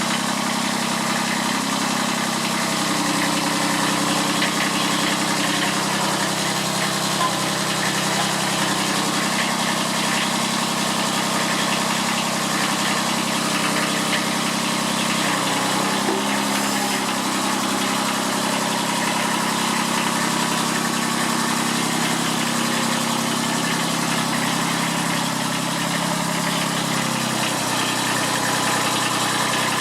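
Kubota B7001 tractor's three-cylinder diesel idling steadily while still cold, just after a hard cold start. Its note changes slightly about halfway through and again near the end.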